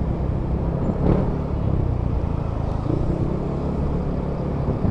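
Yamaha Aerox 155 scooter's single-cylinder engine running steadily under way, with road and wind noise, and a short knock about a second in.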